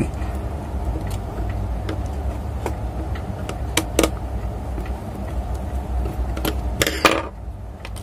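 Small clicks and scrapes of a tester screwdriver turning the terminal screws of a Dixell XR06CX refrigeration controller, over a steady low hum, with a louder clatter about seven seconds in.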